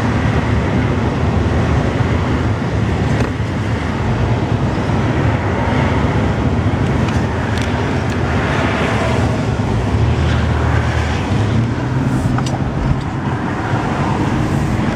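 Steady road noise of a moving vehicle: a constant low engine and tyre rumble with a hiss of wind and road noise above it.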